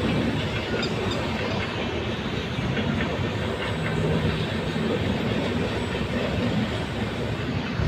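Indian Railways express passenger train running, heard from aboard a coach: a steady rumble of wheels on rails.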